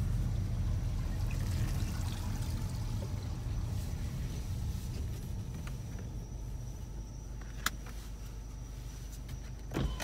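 2018 Honda Accord's turbocharged 2.0-litre four-cylinder, fitted with a short foam-filter intake, heard from the cabin as the car rolls slowly: a low engine and road rumble that eases off over the first few seconds. A sharp click about three-quarters of the way through and a low thump near the end.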